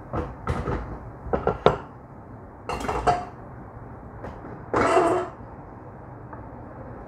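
Cookware being handled on a gas hob: a stainless steel pot and a wok knocked and set down, a run of sharp clanks in the first two seconds and the loudest, briefly ringing clank about five seconds in.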